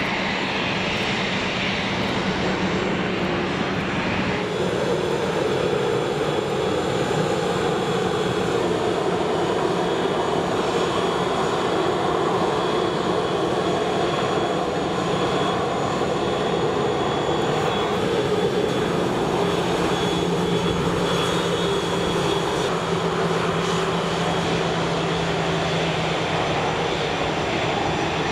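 Airbus A320-214's CFM56-5B turbofan engines running at low taxi power as the airliner rolls past: a steady jet whine over a low rumble. The tone shifts about four seconds in.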